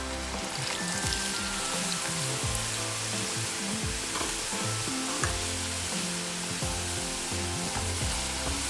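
Matchstick-cut potatoes deep-frying in hot oil in a saucepan: a steady, busy sizzle and bubbling as more strips are dropped in.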